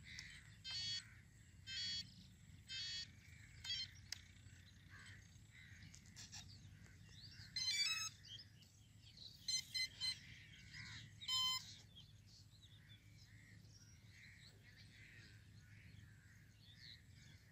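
A series of short electronic beeps from the RC glider's electronics as its battery is connected and the radio set up: four evenly spaced beeps over the first few seconds, then a quicker cluster of beeps in the middle. Birds chirp faintly in the background.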